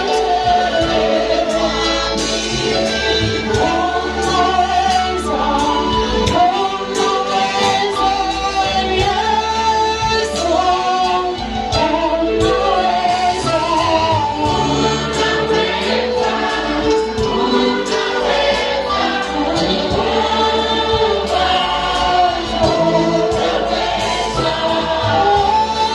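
Gospel choir singing in Swahili, a man leading on a microphone with the choir behind him, over a steady held instrumental backing.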